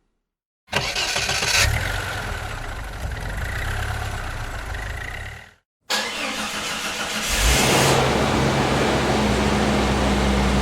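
A car engine heard in two separate recordings cut together. Each starts abruptly with a brief louder burst as the engine catches, then settles into steady running. The first cuts off suddenly before the second begins.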